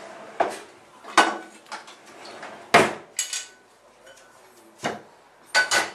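Pots, pans and kitchen utensils clattering as they are handled at a kitchen counter: a string of separate knocks and clanks, some ringing briefly, the loudest about three seconds in.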